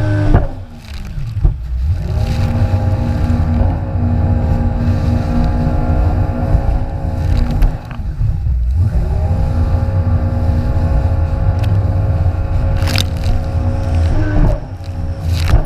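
Jet ski engine running hard. Its pitch dips and comes back up about four times as the craft rides over waves, under a heavy rumble of wind and water, with a couple of sharp slaps near the end.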